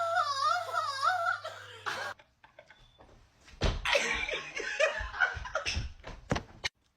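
A person making a high, wavering wail with the voice, which breaks off about two seconds in; after a short pause, laughter breaks out about halfway through.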